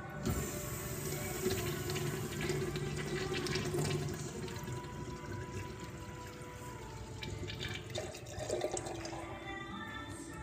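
Kohler Dexter urinal flushing: water rushes in suddenly a moment after the start, runs steadily for several seconds, then tapers off toward the end.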